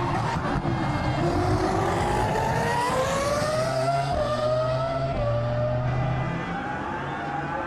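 Racing car engine accelerating hard, its pitch climbing steadily, with a brief drop about four seconds in before it climbs again.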